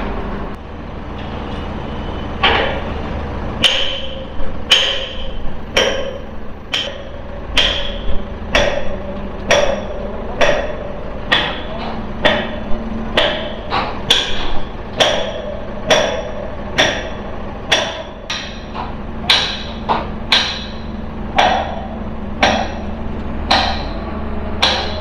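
Hammer blows struck at a steady pace of about one a second, each with a short ringing tone, over a steady low hum.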